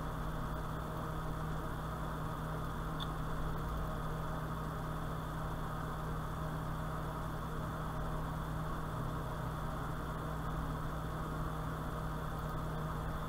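Steady background hum with hiss: a constant low drone and a faint high tone that do not change, with one tiny chirp about three seconds in.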